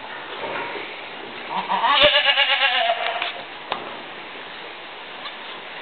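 A goat bleating once, a quavering call about a second and a half long beginning around one and a half seconds in, with a single sharp click near its start.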